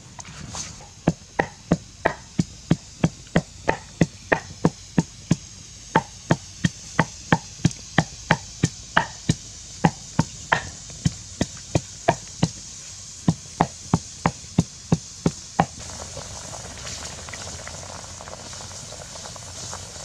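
Pestle pounding red chillies in a mortar: steady dull knocks about three a second, with two short pauses, stopping about three-quarters of the way through. Then a pot of eggs at a rolling boil, bubbling with an even hiss.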